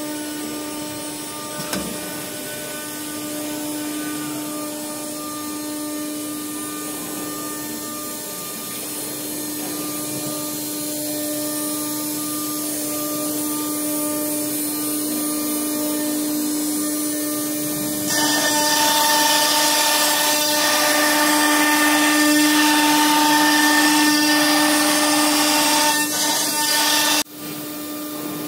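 CNC router spindle running with a steady high whine while its bit engraves a pattern into a panel. About two-thirds of the way in, a louder rushing noise joins the whine, then cuts off suddenly near the end.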